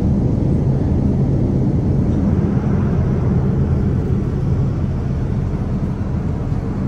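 Steady cabin noise of a Boeing 787-9 airliner in cruise, a constant low rumble of engines and airflow heard from inside the cabin.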